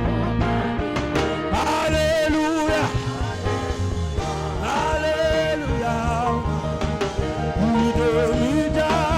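Saxophone playing a slow worship melody with wide vibrato on long held notes, over live band accompaniment with a steady bass.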